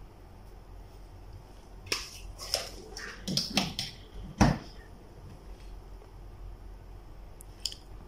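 Faint, scattered clicks and taps of stiff copper test-lead wires being handled and touched against the metal terminals of AC run capacitors, over a steady low hum.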